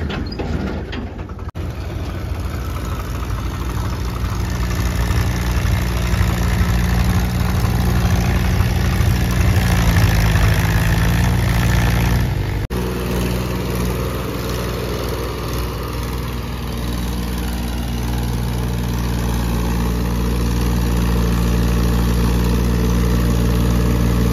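Mahindra tractor's diesel engine running steadily under load as it pulls a soil-laden trolley up a dirt ramp. The sound breaks off abruptly twice, about a second and a half in and about twelve and a half seconds in.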